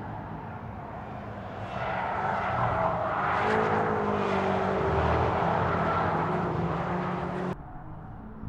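Two BMW X6 M SUVs with twin-turbo V8 engines driving past at speed on a race track. The engine sound swells from about two seconds in, the pitch dips slightly in the middle, and it cuts off suddenly near the end.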